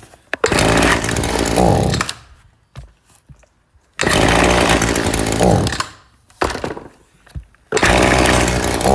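Small two-stroke engine of a handheld power tool running in three short bursts of about two seconds each, each rising in pitch before cutting off, with quiet between.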